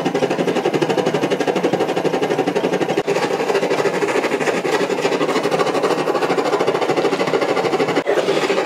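Petrol camping stove burner running at full flame: loud, steady burner noise with a fast, even flutter.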